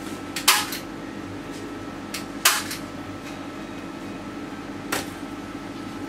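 Three short scratchy scrapes of a palette knife working thick oil paint, about two seconds apart, over a steady low hum.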